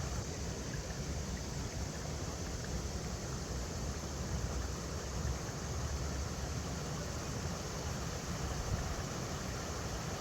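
River water running over rocks: a steady, even rushing with a strong low rumble underneath.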